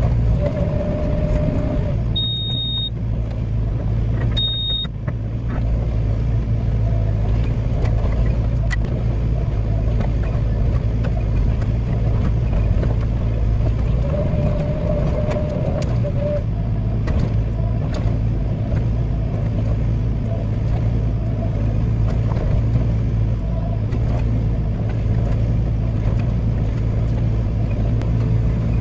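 Hitachi 14-tonne excavator's diesel engine running steadily under work, with a higher hum rising briefly twice. Two short high-pitched beeps sound a few seconds in.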